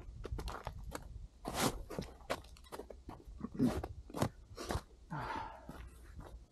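Hiking footsteps crunching on snow and dirt trail at an irregular pace, with a longer scraping crunch about five seconds in.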